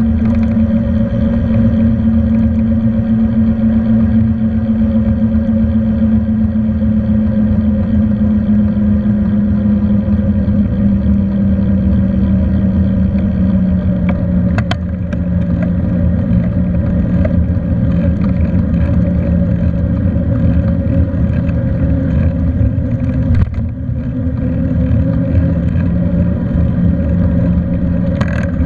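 Steady hum and low rumble of a bicycle rolling along an asphalt road. The hum drifts slowly lower in pitch over the first half, and there is a sharp click about halfway through.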